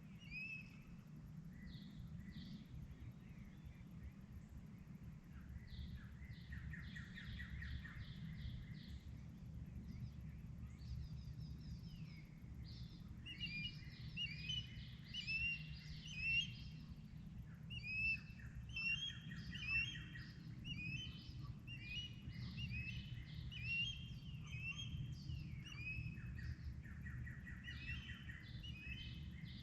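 Dawn chorus: several birds singing and calling at once, with short chirps, whistled notes and rapid trills overlapping. It grows busier about halfway through. A steady low rumble runs underneath.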